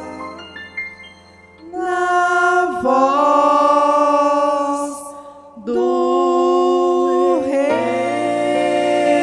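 Ending of a gospel hymn: after a short lull, two long held notes sung by women's voices with musical accompaniment, each note closing with a short slide in pitch.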